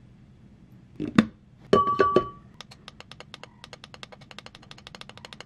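Ultrasonic essential-oil diffuser being put together and switched on: a thunk about a second in, then clunks from its glass cover with a short, steady electronic beep. A fast, even ticking of about ten clicks a second follows.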